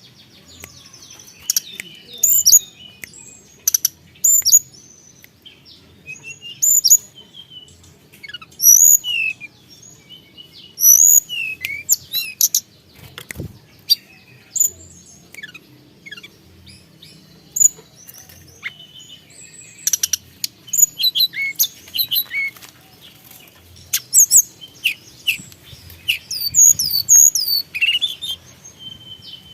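Tledekan gunung (hill blue flycatcher) singing energetically: a varied run of sharp, high chirps and quick falling whistles in bursts with short gaps between them.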